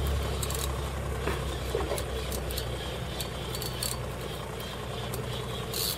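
Boat engine running steadily with a low drone, with a few light clicks and knocks on top.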